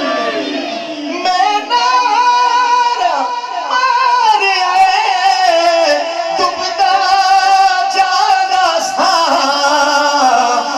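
A man singing a devotional manqabat into a microphone, in long held notes that slide and bend between pitches.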